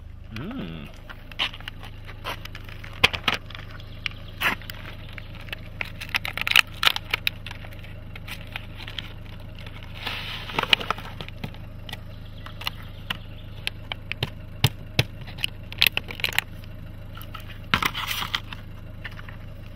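Hands handling packaging: crinkling wrappers, a cardboard box of gouache paint tubes being opened, and the tubes clicking as they are tipped out and set down on gravel, in scattered sharp clicks and crackles. Under it runs a steady low hum from the car's engine idling.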